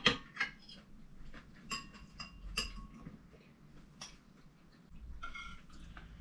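Metal cutlery clinking against china bowls and plates during a meal: a handful of light, ringing taps about a second apart.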